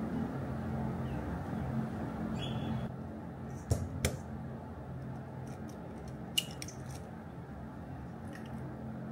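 An egg being tapped and cracked on the rim of a stainless steel mixing bowl, then the shell pulled apart: three sharp taps, two close together about four seconds in and one more a couple of seconds later. A steady low hum runs underneath.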